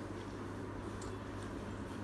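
A few faint wet mouth clicks as a thick udon noodle is drawn in and chewed, over a steady low hum.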